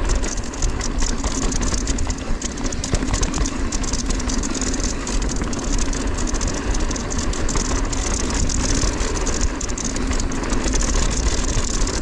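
Mountain bike riding down a dirt and rock trail: tyres rolling over the ground with constant small rattles and clicks from the bike, and wind rumbling on the action camera's microphone.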